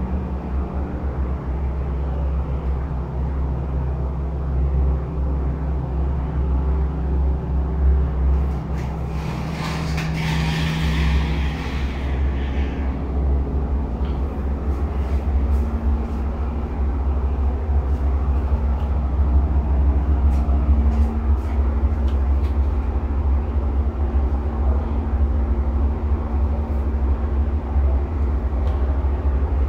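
Steady low hum with a few steady tones above it. A brief hiss rises over it about ten seconds in and fades a few seconds later.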